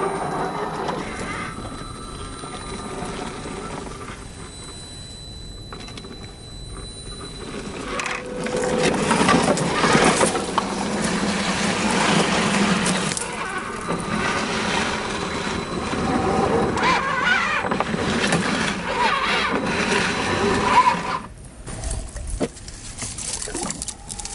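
Tamiya CC-01 RC crawler's 55-turn brushed electric motor and gears whirring as it drives through shallow muddy water, tyres splashing and churning. The sound gets louder from about eight seconds in and drops off near the end.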